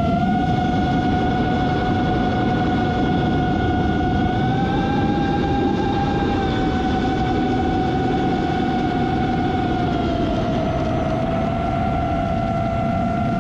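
Electric motors and propellers of a small drone whining steadily, heard from the drone's own onboard camera over a low rushing of air. The pitch rises a little about four seconds in, eases back, then dips briefly later on as the throttle changes.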